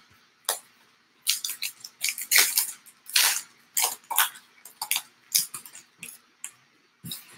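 A 2019 Allen & Ginter trading-card pack wrapper being torn open and crinkled by hand: a quick run of short crackling rustles that starts about a second in and thins out near the end.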